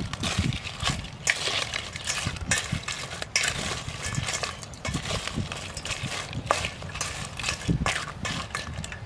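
Metal spoon stirring crabs in a stainless steel bowl: shells clattering and the spoon scraping and knocking against the bowl in many irregular clicks.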